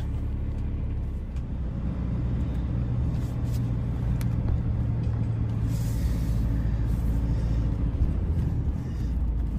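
Inside a van's cab while it drives along a town street: steady engine and road rumble.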